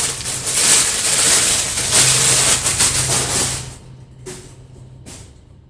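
Packaging and a padded lens pouch rustling and crinkling as a large lens is handled out of them. The rustling stops about three and a half seconds in, followed by two short soft brushes.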